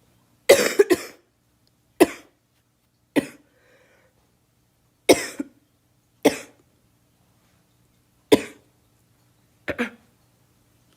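A girl coughing: seven short, sharp coughs spaced one to two seconds apart, the first and last coming as quick pairs.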